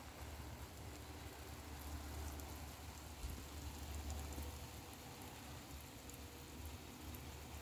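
Garden sprinkler spray falling on plants and a wet concrete path: a faint, steady patter of water, with a low rumble underneath.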